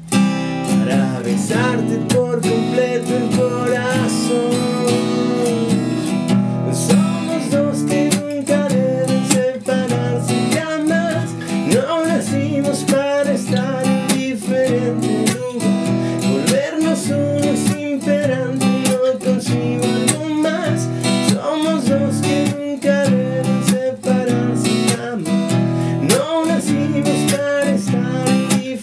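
Acoustic guitar strummed in a steady rhythm, chords ringing without a break.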